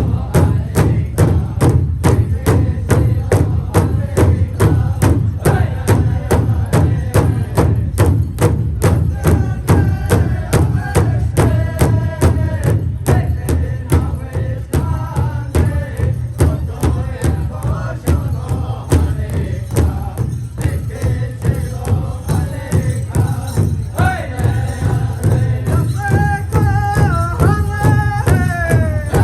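Powwow drum group: a large drum struck in a steady beat, about three to four strokes a second, with a group of singers chanting over it; the singing grows stronger and higher-pitched toward the end.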